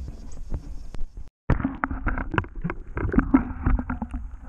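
Muffled water sloshing and splashing around a camera held just under the surface beside a largemouth bass being returned to the water, with many short knocks and a low rumble. The sound cuts out completely for a moment about a second in.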